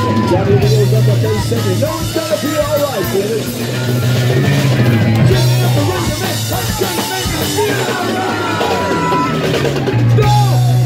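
Punk rock band playing live and loud, with electric guitar and a pounding drum kit, heard from close in front of the stage.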